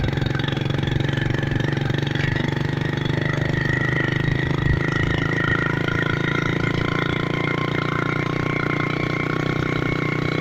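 Small motorcycle engine running at a steady road speed, with a constant high whine over the engine note.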